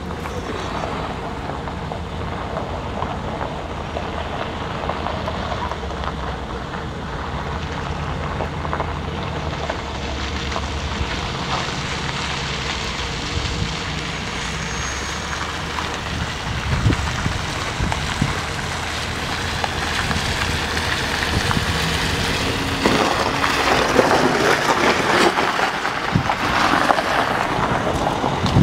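Mercedes-Benz SUV engine running steadily as the vehicle crawls across a steep side slope, with wind buffeting the microphone. The wind noise grows louder over the last few seconds.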